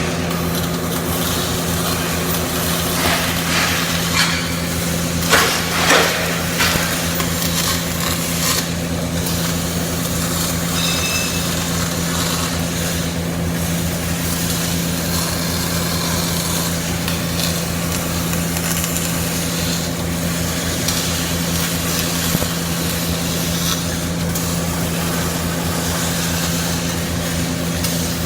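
CO2 gas-shielded (MIG/MAG) welding arc crackling steadily over a low steady hum, with a few louder pops about five and six seconds in.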